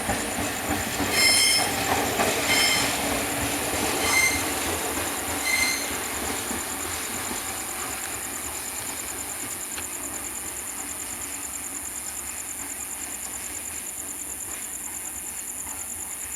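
A train rolling past, its wheels squealing in four short high-pitched bursts about a second and a half apart, then the rolling noise fading away.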